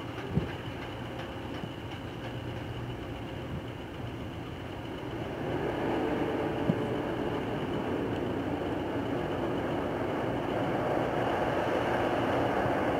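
Fishing ship of a purse-seine fleet under way, its engine rumble and the wash of its bow wave growing louder about five seconds in as it draws near.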